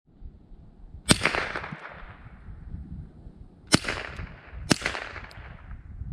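Three shots from a scoped hunting rifle: one about a second in, then two more about a second apart in the second half. Each is a sharp crack with a fading echo after it.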